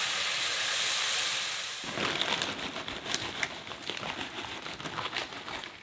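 Spotted bass fillets sizzling in butter in a frying pan; about two seconds in this gives way to blue tortilla chips being poured from a crinkling bag onto a metal baking sheet, a run of light crackling clicks.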